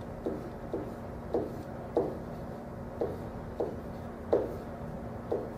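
Pen writing on a whiteboard: a string of about nine short, irregular taps and strokes as characters are written, over a steady low hum.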